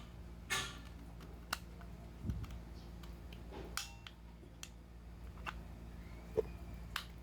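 Scattered light clicks and taps of drum-brake shoes and their spring-type return springs being hooked into place by hand on a motorcycle rear hub, about one click a second, against a low steady hum.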